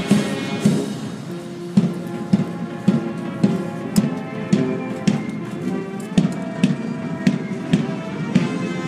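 Military band playing a march, the notes carried over a steady drum beat of just under two strokes a second.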